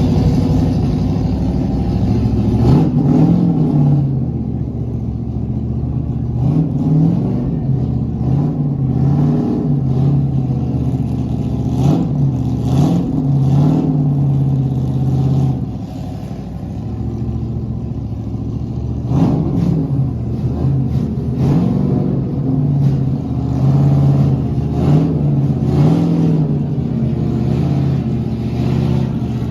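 NASCAR stock car V8 engines idling and being blipped on the throttle, the pitch jumping up and falling back again and again.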